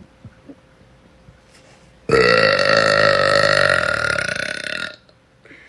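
A woman's long, loud, deliberate burp of nearly three seconds. It starts abruptly about two seconds in and holds a fairly steady low pitch until it stops.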